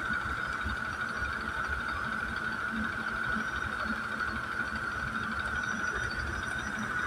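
EF12K electric freight locomotive running, a steady hiss-like whine over a low rumble.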